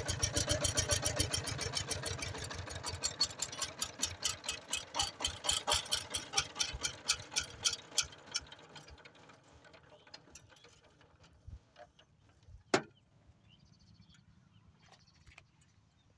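Power tiller's single-cylinder diesel engine running with a rapid, even beat while it tows a loaded trolley, fading away over the first several seconds as it pulls off. One sharp knock sounds near the end.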